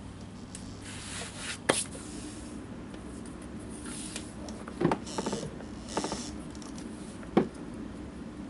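Leather and hand tools being handled on a wooden lapboard at a shoemaker's bench: a leather welt strip rustles and slides over the board between four sharp knocks and taps, the loudest about one and a half seconds in and near the end.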